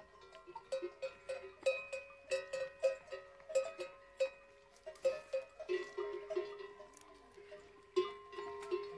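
Neck bells on walking camels clanking irregularly. Several bells at different pitches are struck a few times a second, and each one rings on briefly.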